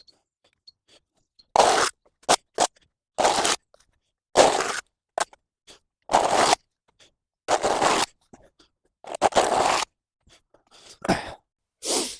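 Spade scraping mud and leaf debris off a path in repeated strokes, about one every second or so, with a few short knocks in between.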